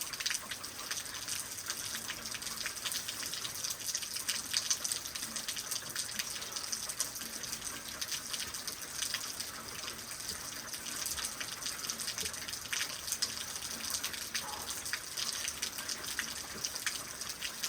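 Steady rain falling, with many small drops ticking and splashing close by.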